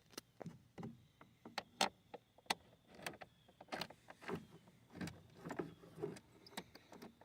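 Irregular clicks, taps and light rattles of battery cables and terminal hardware being handled and fastened, as a second battery is wired in parallel with the first.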